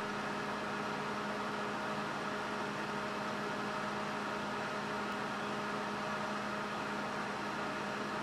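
A steady machine hum with an even hiss, unchanging throughout.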